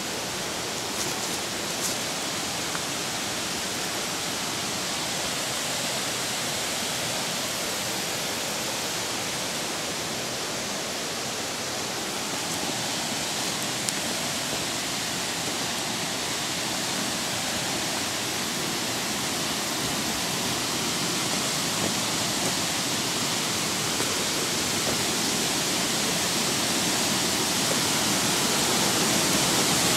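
Rushing water from a stream or waterfall, a steady hiss that grows louder towards the end.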